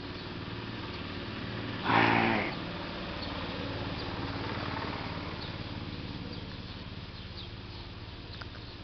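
A steady low mechanical hum, with one short, loud, pitched cry about two seconds in and a few faint high ticks.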